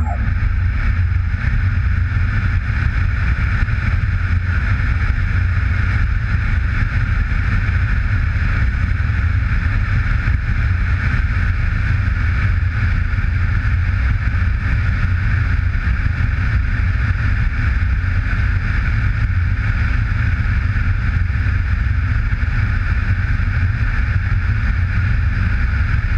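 Steady rush of wind and airframe noise on a UAV's onboard camera in flight, even throughout with no change in pitch.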